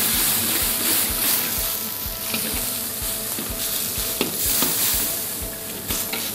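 Tomatoes and water sizzling in a wok over high heat, with a metal ladle stirring and scraping against the pan in scattered clicks.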